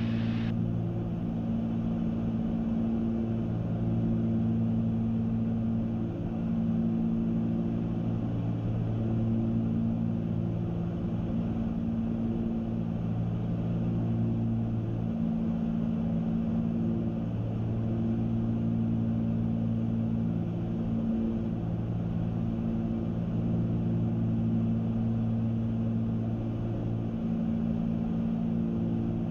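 Cabin drone of a Cessna 310's two six-cylinder piston engines and propellers in flight, a steady hum that swells and fades every few seconds as the two engines drift in and out of step with each other.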